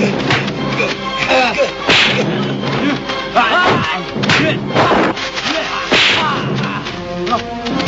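Fight sound effects: a run of punch and kick impacts, sharp whacks and thuds with swishes of fast blows, over background music.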